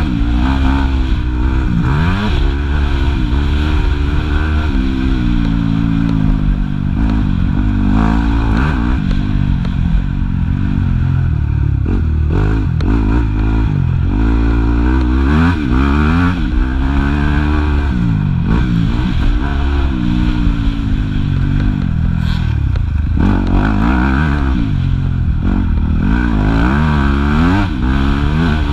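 Yamaha YZ250F four-stroke single-cylinder motocross engine heard from on the bike, its revs climbing and dropping again and again as the rider accelerates and backs off along a dirt track.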